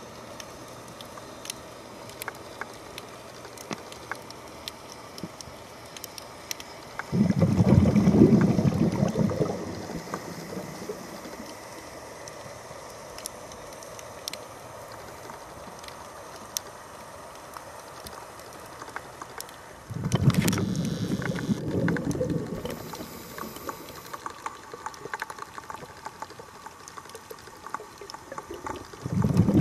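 A scuba diver's exhaled breath bubbling out of the regulator, heard underwater through the camera's housing: three loud low bubbly gushes, each two to three seconds long, about a third of the way in, two-thirds in and at the very end. Between exhalations there is a faint steady hiss dotted with small clicks.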